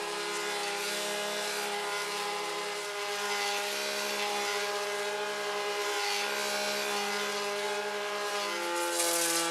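Petrol backpack brush cutter running steadily as it mows through reeds, its engine note shifting slightly in pitch about three seconds in and again near the end.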